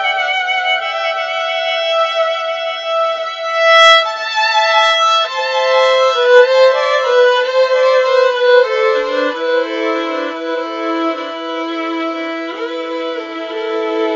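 Violin music: a slow melody with vibrato, notes held about a second each, joined by a lower second line about two-thirds of the way through.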